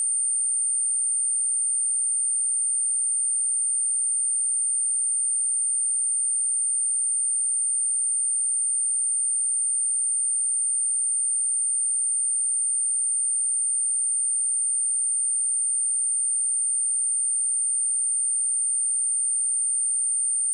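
A pure 8938 Hz sine-wave test tone, one high-pitched unbroken steady tone held at a constant level.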